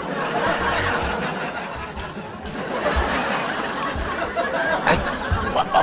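Studio audience laughing and cheering, with a few dull low thuds.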